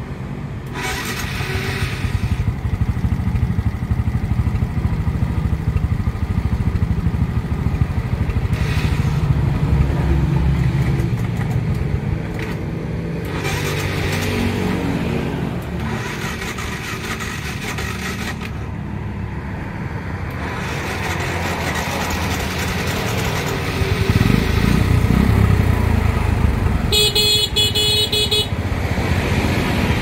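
A steady low motor rumble with a few knocks, then near the end the newly fitted electric horn of a Suzuki Shogun motorcycle sounds once for about a second and a half, showing that the horn works again.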